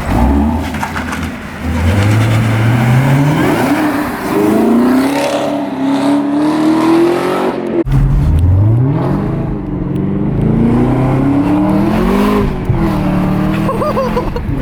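Supercharged LT4 V8 of a Chevrolet Camaro ZL1, fitted with a Rotofab cold-air intake, accelerating hard with its pitch climbing. It breaks off abruptly about eight seconds in, then climbs again and rises and falls with the throttle.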